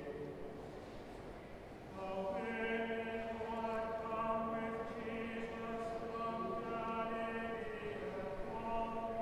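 A choir singing slow chant in long held notes. It is softer for the first two seconds, then swells into sustained chords.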